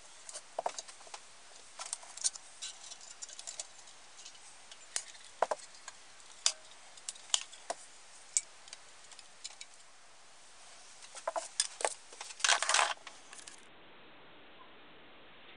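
Light metal clicks and taps as the parts of a Game Junior #1 camp stove are handled and fitted together, irregular and scattered, with a quick cluster and a short rattle near the end.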